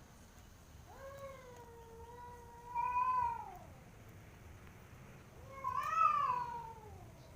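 Cat yowling in a standoff: two long, drawn-out yowls. The first swells near its end, and the second, louder one about six seconds in rises and then falls in pitch.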